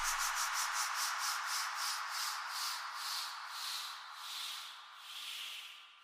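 Synthesized white-noise sweep closing out a DJ remix: hissing pulses that slow down and fall in pitch while fading away, with no bass under them.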